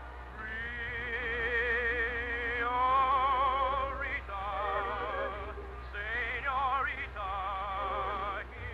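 A trained voice singing an operetta number in long held notes with a wide, even vibrato, moving up and down in pitch between short breaths. A steady low hum lies underneath.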